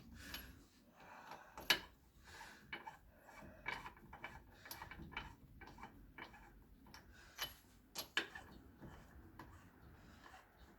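Scattered metal clicks and clinks of hand tools and lug nuts as a car wheel is snugged onto its hub before torquing. A sharp click comes about a second and a half in and another near eight seconds.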